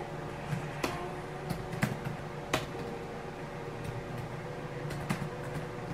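A handful of sparse, irregular clicks from working a laptop's keys and trackpad, over a steady low hum.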